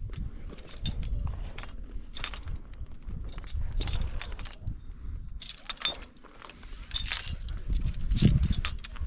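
Metal climbing hardware, carabiners and quickdraws, clinking and jingling in irregular clicks while being handled at the anchor, with a low rumble underneath.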